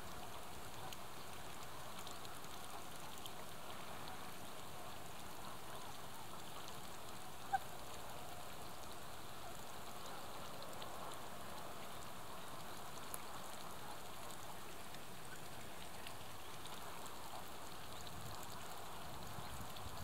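A flock of Canada geese dabbling and feeding on the water, making a steady soft wash of small splashes and ticks, with one brief sharp call about seven and a half seconds in.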